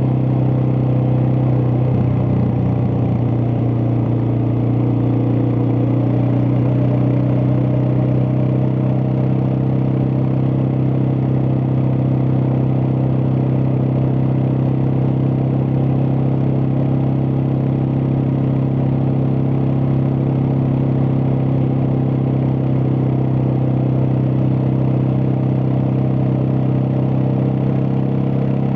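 Suzuki DR650's single-cylinder four-stroke engine running steadily, a constant low hum with no change in speed.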